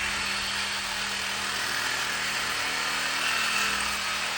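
A power tool running steadily against the motorcycle's exhaust pipe as the catalytic converter is cut out and the pipe reworked, with a continuous hiss and a steady hum under it.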